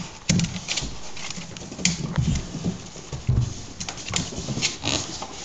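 A large dog sniffing and snuffling close up, with irregular light taps and knocks on a hardwood floor.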